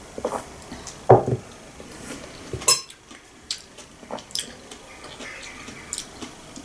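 A metal spoon clinking against a glass bowl and a ceramic mug set down on the table: a string of separate clinks and knocks, the loudest about a second in and again just before three seconds.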